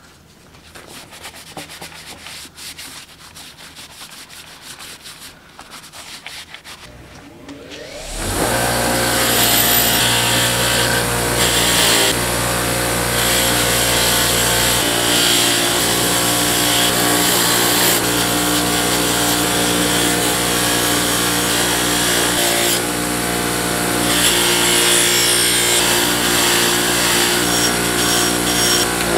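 Light handling and rubbing noises at first. About eight seconds in, a bench grinder's wire wheel runs loudly and steadily with a motor hum, while small metal parts are held against it and scoured clean.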